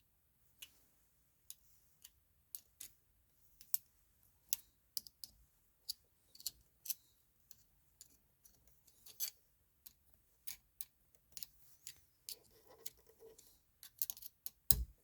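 Scattered sharp clicks and light taps, irregularly spaced, from small metal plumbing parts being handled: a braided water-heater connector with its brass swivel nut and washer.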